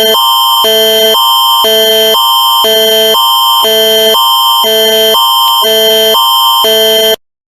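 Canadian Alert Ready emergency attention signal: a loud electronic alarm alternating between a high and a low chord of tones twice a second, over a steady high tone, cutting off sharply near the end.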